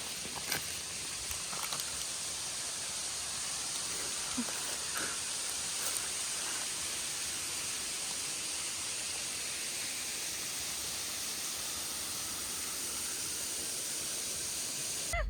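Steady hiss of background noise, with a few faint clicks in the first seconds.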